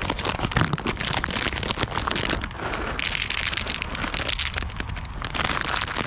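Plastic snack bag crinkling and rustling in the hand as cashews are shaken out of it, with many small irregular crackles, over a steady low rumble of wind on the microphone.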